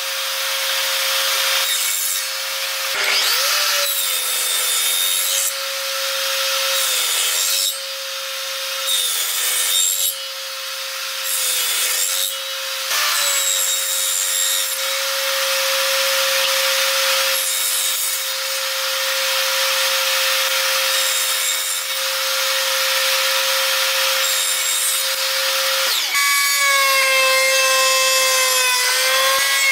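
Benchtop table saw running with a steady whine, making cut after cut through small pallet-wood blocks, each cut breaking off within a second or two. Near the end it gives way to a router table's motor and bit cutting along the edge of a small block, at a different, higher whine.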